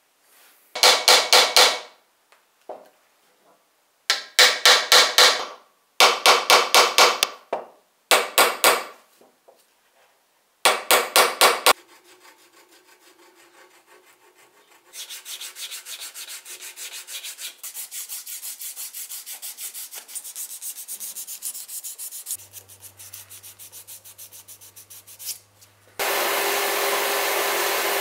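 Hand rasp scraping the wooden pommel 'ears' of a yataghan hilt in several short bouts of quick strokes, then in lighter, finer strokes. Near the end a motor-driven buffing wheel starts up with a loud steady whirr.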